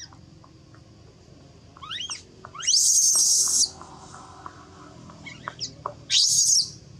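Baby macaque crying in distress: shrill, rising squeals about two seconds in, then a loud scream lasting about a second, and another shorter scream near the end. These are the cries of an infant whose mother is refusing to let it nurse.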